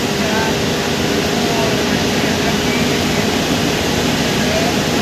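Leyland BS-III bus's turbocharged diesel engine running steadily under way, heard from inside the cabin, with a turbocharger whine over the engine and road noise.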